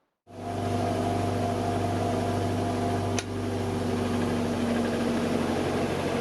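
Titan TTB521GRB 200mm bench grinder running at full speed, a steady motor hum with a vibration in it. The grinder is being test-run after the right-hand wheel's plate was turned another quarter inch, and the owner judges the vibration a little worse. It switches on abruptly just after the start, and there is a sharp click about three seconds in.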